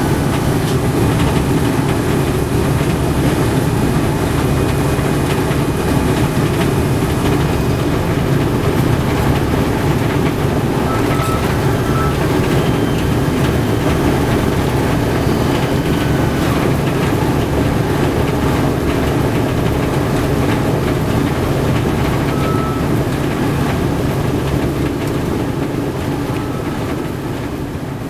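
The B-17G Flying Fortress's four Wright Cyclone nine-cylinder radial engines running at taxi power, heard as a steady, loud drone from inside the bomber's nose. The sound fades out near the end.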